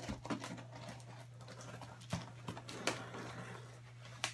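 A scalpel slicing through packing tape and cardboard on shipping boxes being opened, giving irregular scrapes and clicks, over a steady low hum.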